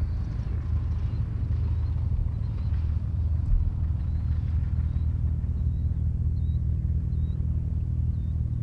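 Light piston aircraft engine running with a steady, low, even drone that holds the same pitch throughout.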